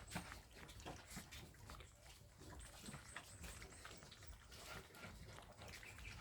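Faint, scattered clicks and smacks of Shih Tzu dogs eating from their food.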